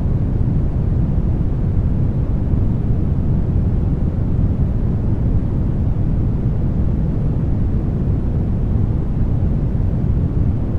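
Brown noise: a steady, deep, even rush with most of its weight in the low end and little hiss up top.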